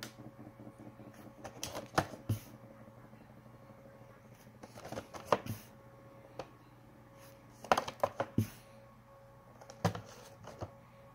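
Cardboard Funko Pop box being handled, with short clusters of taps, clicks and knocks as it is turned over and set down. A faint steady hum runs underneath.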